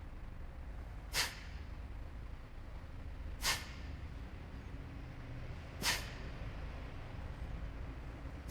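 Kapalabhati breathing: sharp, forceful exhalations through the nose, each a short puff, three of them a little over two seconds apart, with a steady low hum underneath.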